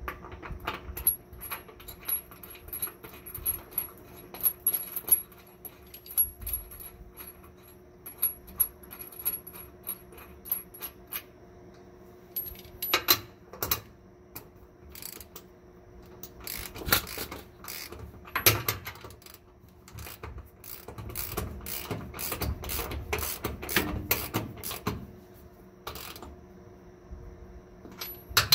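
Irregular metallic clicks and clinks of bolt hardware on a steel trac bar bracket: washers and a nut being threaded onto a bolt by hand, then a socket and ratchet fitted and worked on it. The clicks come thickest in the second half.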